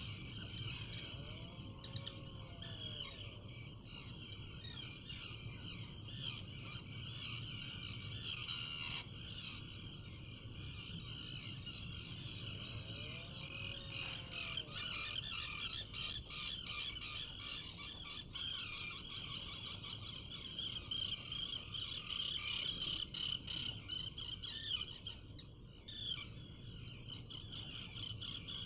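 Dense, continuous chatter of many seabirds calling in the colony outside a puffin nesting burrow, over a low steady rumble.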